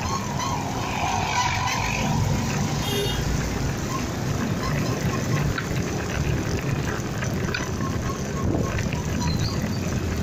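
Motorcycle riding in traffic: a steady engine and road rumble, with a short higher tone about three seconds in.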